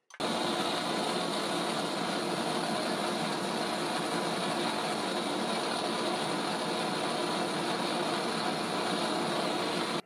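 Steady whirring of a running power-tool motor, a continuous even mechanical noise with a low hum that starts abruptly.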